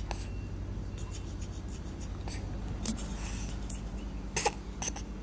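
Baby hiccuping: several short, sharp hiccups in the second half.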